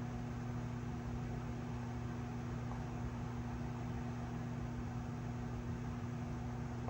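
Steady low electrical hum with an even hiss behind it, unchanging throughout, with no distinct tool sounds.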